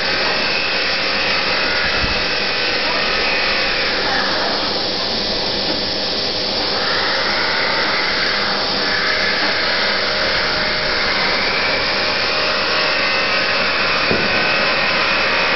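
Automatic popcorn vending machine running through its cycle: a steady mechanical whirring and rasping, with a change in tone a few seconds in.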